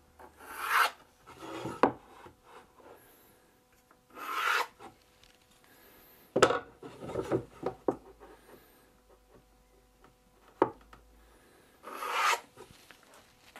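Pencil drawn along a metal square across plywood in several short scratchy strokes, with a couple of sharp clicks as the square is shifted and set down on the wood.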